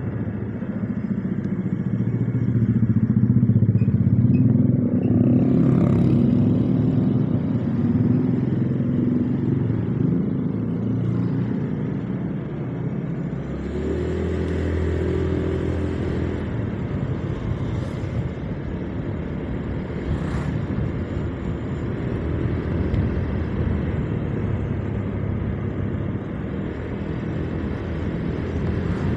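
Motorcycle engine running while riding, its pitch shifting as the bike speeds up and slows, with road noise. It is loudest a few seconds in.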